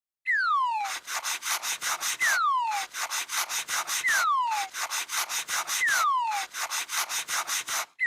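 A rapid, steady rasping, about six or seven scratchy strokes a second, with a falling whistle that comes back roughly every two seconds: a synthetic cartoon sound effect.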